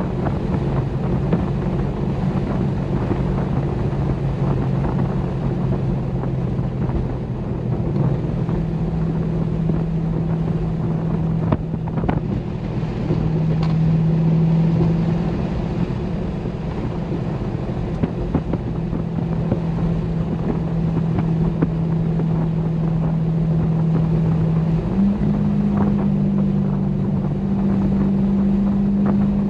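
Chevrolet Corvette C6 Grand Sport's 6.2-litre V8 running at a steady cruise, a low exhaust drone that holds one pitch, steps up about eight seconds in and steps up again near the end, over wind and road noise.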